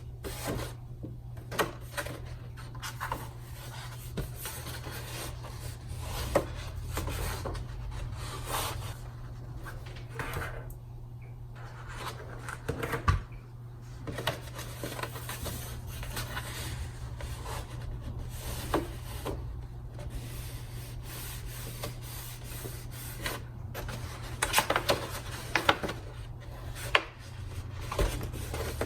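Stiff cardstock rubbing and rustling as large paper-flower petals are handled and worked, with scattered sharper taps and clicks, over a steady low hum.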